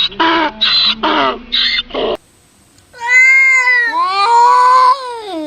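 A quick run of short, pitched animal calls, about two or three a second, stops abruptly. Then a cat gives two long, drawn-out meows, the second rising and then sliding down in pitch.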